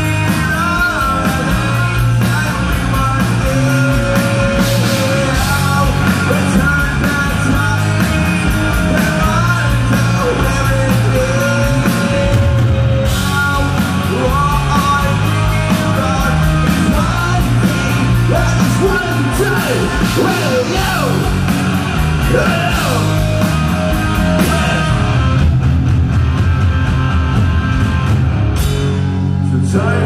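Rock band playing live at full volume: distorted electric guitars and drums, with a sung vocal.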